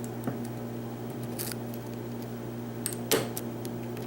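Faint scraping and small metallic clicks of a hook pick working the pins of a pin-tumbler padlock under a tension wrench, with one sharper click about three seconds in.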